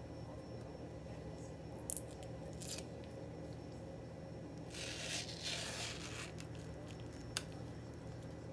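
Knife paring the peel off a ripe mango: a few short clicks and, near the middle, a scraping rustle lasting about a second and a half, over a steady low hum.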